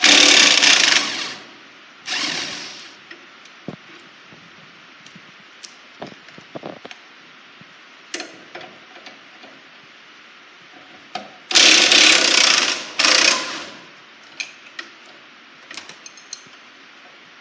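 Quarter-inch cordless impact driver with a 3/4-inch socket hammering in four bursts: one about a second long at the start, a short one a second later, and two more near the middle. It is loosening the bolt on a John Deere 7000 planter's closing wheel arm against a wrench on the lock nut. Small clicks and clanks of metal parts come between the bursts.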